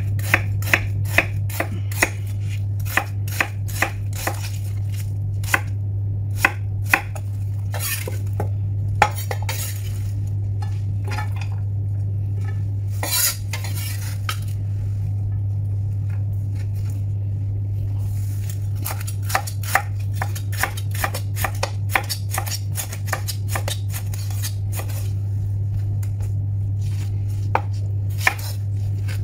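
Chef's knife chopping onion, and near the end yellow bell pepper, on a wooden cutting board: runs of quick sharp knocks broken by short pauses, over a steady low hum.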